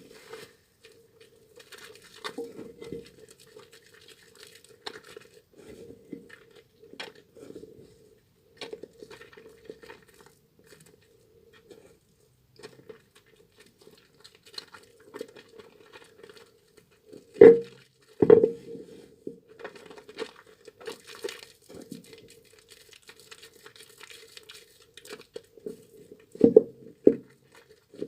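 Hands lathering a soaked, mushy bar of NMZhK tar soap, making irregular wet crackling and crinkling sounds. A few louder sharp knocks come in the middle and near the end, over a faint steady hum.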